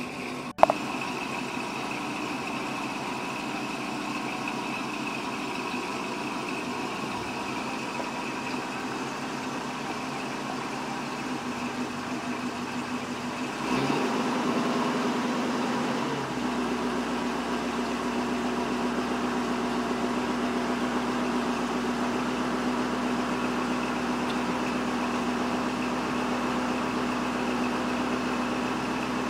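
Classic Buick convertible's engine idling steadily, with a sharp click about half a second in. About 14 seconds in, the power convertible top starts working, adding a steady motor whir that runs on as the soft top folds down.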